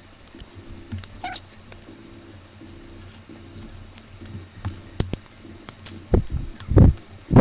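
Small sharp clicks and ticks of a pry tool working the cracked screen and LCD assembly loose from a Samsung Galaxy S5, with a brief squeak about a second in. A few dull thumps come near the end.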